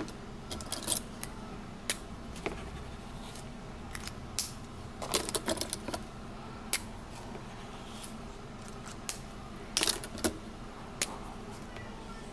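Scattered light metallic clicks and clinks of metal-barrel fountain pens being handled and set against one another, with small clusters of clicks about five seconds in and again near ten seconds.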